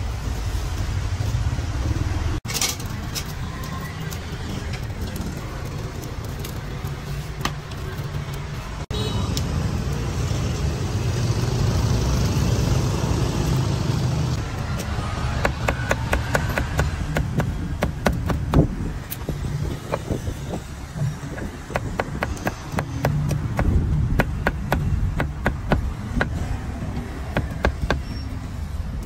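Steady street traffic hum, and in the second half a cleaver chopping roast meat on a wooden chopping block in quick repeated chops.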